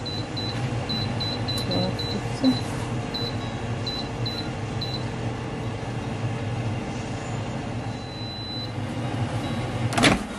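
Air fryer running with a steady fan hum. A string of short, high beeps comes at uneven spacing over the first five seconds, and a sharp knock sounds near the end.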